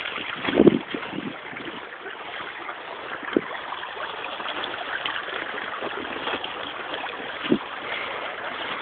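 Steady rushing of running water, with a short vocal sound about half a second in and a couple of faint knocks later on.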